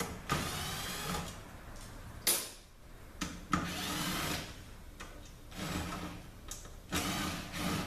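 Small cordless 12-volt power driver run in several short bursts of about a second each, with a sharp metal click between them, while bolts are run out of a transmission case.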